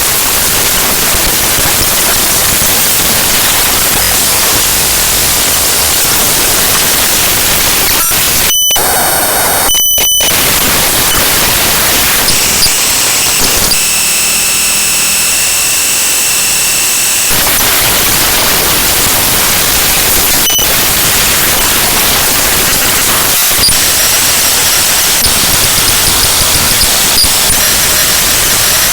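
Raw bytes of the QuickTime.qts file played back as audio by Binary Waterfall: loud, harsh static-like noise. Twice, around eight and a half and ten seconds in, it gives way to short stretches of steady high tones, and from about twelve to seventeen seconds in steady high tones ring over thinner noise.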